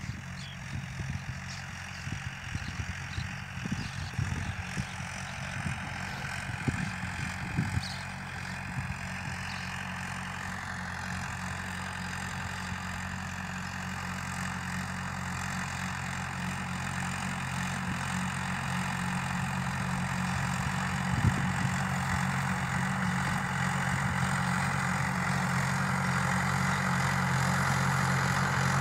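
Tractor engine running steadily while pulling a harrow, with a few knocks in the first several seconds and growing gradually louder as it comes closer.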